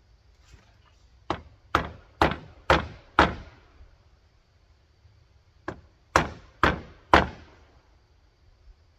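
Hammer blows on the wooden roof framing, two runs of strikes about two a second: five strikes, a pause of about two seconds, then four more.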